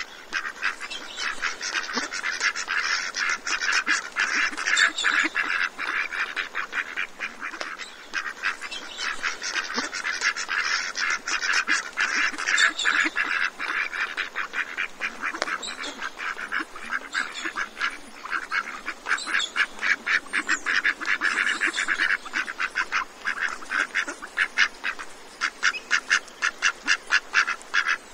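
A large flock of ducks calling without pause, a dense, rapid chatter of short calls.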